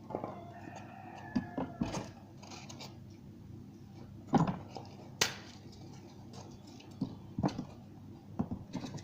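Small pocket knife digging and scraping inside a foam block to pry out stuck airsoft BBs, giving irregular sharp clicks and knocks with pauses between them.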